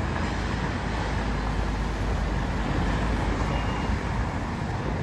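Steady city street traffic noise: passing cars giving a continuous low, even hum and hiss.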